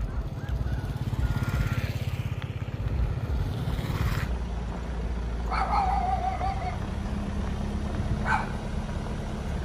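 Motorcycle engines running along a dirt road, a steady low drone that pulses in the first few seconds. A dog yelps about halfway through, a wavering call about a second long, and again briefly near the end.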